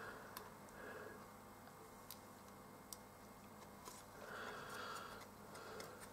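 Faint, scattered light clicks and soft rustling from handling a small printed circuit board while pushing through-hole component leads into it, with a longer rustle about four seconds in as the board is turned over.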